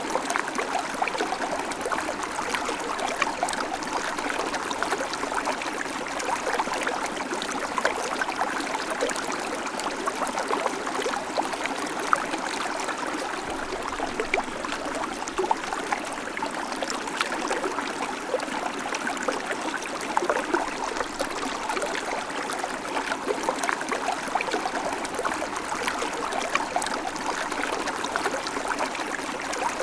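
Babbling creek: water running and burbling over rocks in a steady flow, flecked with small splashes and gurgles.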